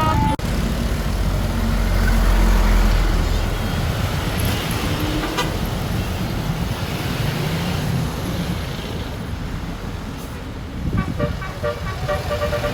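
A bus engine running loud with road noise as traffic goes by. About eleven seconds in, a bus telolet horn starts playing a tune of quick stepped notes.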